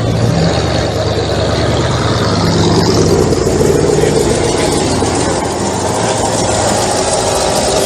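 An engine running steadily and loudly, a low hum under a dense noise.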